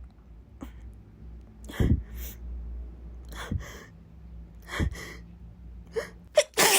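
A woman's string of sharp, gasping breaths as a sneeze builds, some coming in pairs about a second apart, with short voiced catches near the end. The loudest burst comes at the very end, as the sneeze breaks.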